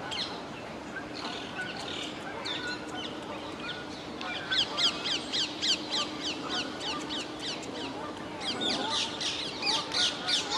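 Rose-ringed parakeets calling: harsh, down-slurred screeches repeated about three a second, in a long run from about four and a half seconds in and again near the end.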